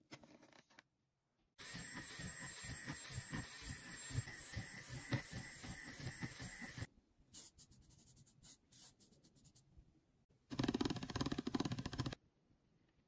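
A small electric drill running with a steady whine as it bores small holes in a sheet of polymer clay, for about five seconds. After some faint clicks, a hand-cranked pasta machine rolls clay through its rollers with a short rattling grind of under two seconds near the end.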